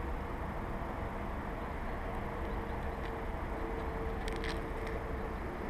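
Thin birch bark being torn and peeled apart by hand, a few faint crackles about four seconds in, over a steady low outdoor background rumble.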